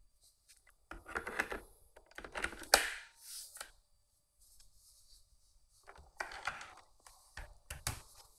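Irregular clicks, knocks and rattling handling noises in several short clusters, the loudest a sharp click nearly three seconds in.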